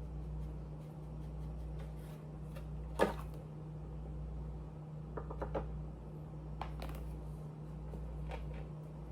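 A steady low hum that pulses about once a second, with a sharp click about three seconds in and a few smaller clicks and taps later on.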